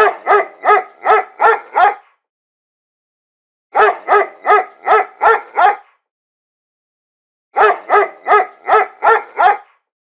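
A dog barking in three volleys of about six quick barks each, roughly three barks a second. Each volley is followed by a silence of nearly two seconds.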